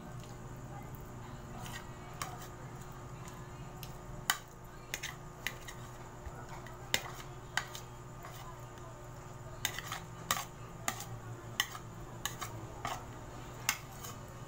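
Metal cutlery clicking and scraping against a ceramic plate while cutting ripe mango halves: irregular sharp clinks starting a few seconds in, several close together in the second half, over a steady low hum.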